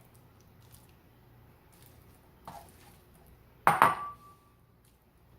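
A metal utensil clinking against a bowl: a faint tap about halfway through, then a louder double clink with a brief ring a little before the end.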